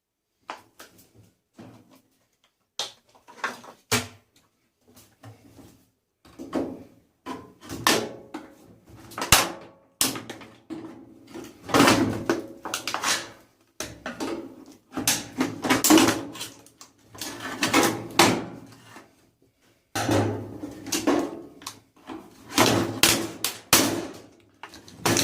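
Irregular clanks, knocks and rattles of tumble dryer sheet-metal and plastic parts being handled and pulled apart during scrapping, getting busier about six seconds in.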